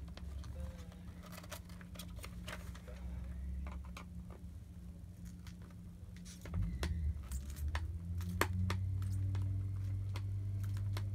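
Screwdriver turning the screws in a Schutt F7 football helmet shell: irregular small clicks and scrapes as the tip works in the screw heads, with the wrong type of screwdriver for these screws. A low steady hum runs underneath and gets louder about six and a half seconds in.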